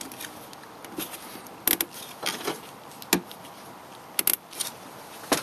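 Plastic cable ties being worked tight around a radiator hose to clamp on a magnetizer: a handful of sharp, separate plastic clicks.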